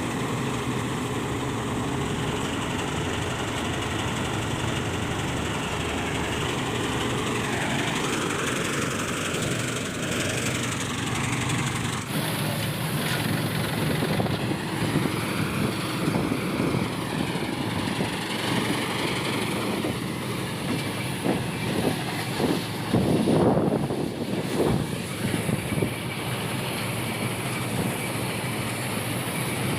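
Diesel farm machinery running steadily, its engine note dipping and rising a few times, with a run of clattering knocks about two-thirds of the way through.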